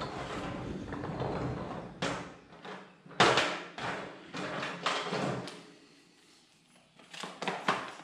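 Plastic handling noise from a DeWalt wet/dry shop vacuum's hose and attachments being stowed: rubbing and scraping, then a sharp knock about three seconds in and a few more knocks, with lighter clicks near the end.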